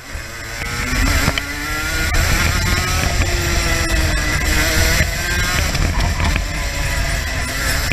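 Racing kart engine at speed from the onboard camera, with wind rumble on the microphone. The engine eases off right at the start, picks up again over the first second, then runs on hard, its pitch rising and falling through the bends.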